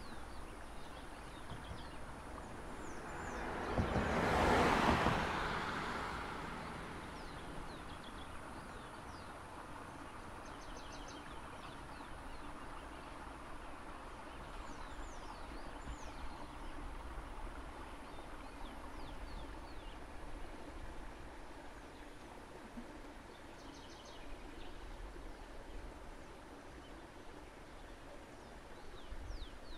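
A vehicle passes by, its noise swelling to a peak about five seconds in and fading over the next couple of seconds. Birds chirp briefly now and then over a steady outdoor background.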